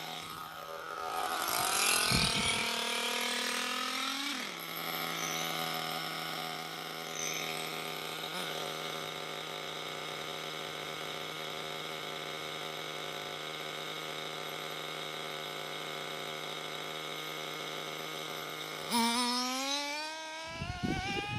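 Nitro RC buggy engine revving up briefly, then dropping back to a steady high idle, then revving up again near the end. Wind buffets the microphone during the revs.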